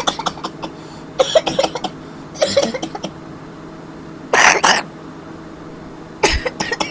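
A man coughing in a series of short fits, about five bouts with some throat-clearing, the loudest a little after four seconds in, over a steady low hum.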